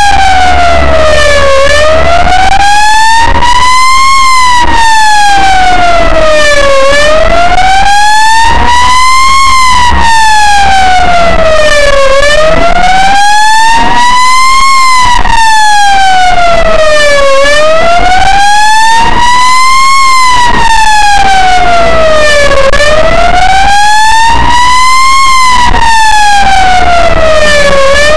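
Ambulance siren on a slow wail, loud and heard from inside the vehicle: the pitch rises and falls smoothly, about five seconds per cycle, over a low steady road rumble.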